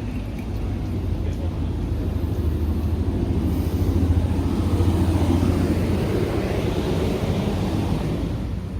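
Road traffic passing close by: a steady rumble of engines and tyres on the road, with one passing vehicle swelling to its loudest about four to five seconds in before fading.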